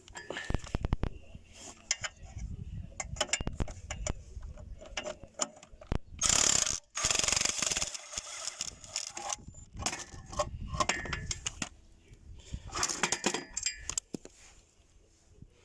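Hand tools and metal parts at work: repeated sharp clicks and ratchet-like clicking, with longer bursts of scraping about six seconds in and again near the end.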